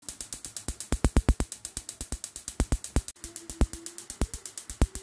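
Electronic background music: a drum-machine beat with fast, even ticks, about eight a second, and kick drums.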